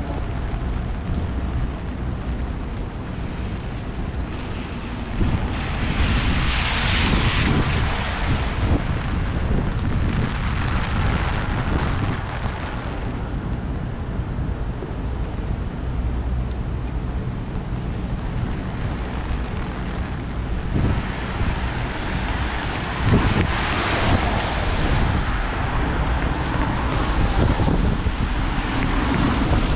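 Rainy city street: wind rumbling on the microphone over a steady wet hiss, with vehicles swishing past on the wet road twice, each rising and fading over a few seconds.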